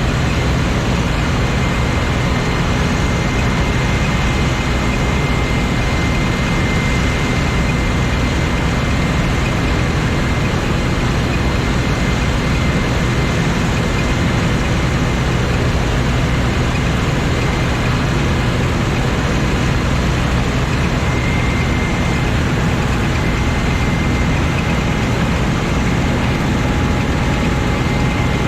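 Claas Lexion 420 combine harvester running steadily while harvesting wheat: a constant machine drone with a low hum and a thin, steady high whine.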